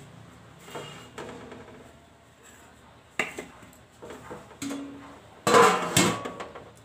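Steel cookware clinking and knocking a few times, then a louder metal clang with a short ringing as the lid is set on the kadhai about five and a half seconds in.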